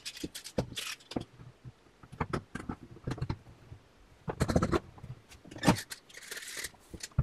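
Light clicks, knocks and scrapes of hands handling the metal magnet strips of a planar loudspeaker panel and fitting spring clamps to hold the reglued magnets. There are two louder clusters of knocks in the second half and a brief hiss near the end.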